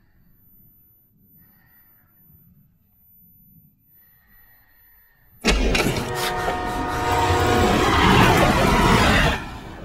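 A train passing at speed with its horn sounding, starting suddenly about five seconds in, building and then cutting off shortly before the end. The first half is only faint low rumble.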